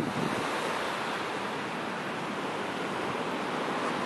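Steady rushing noise of a Boeing 929 Jetfoil running fast on its foils, the gas-turbine waterjet and its spray blending with the wash of the sea.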